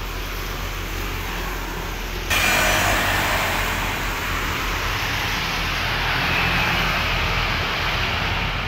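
Street traffic: motorcycles and cars passing close by, with tyre and engine noise. It gets suddenly louder about two seconds in.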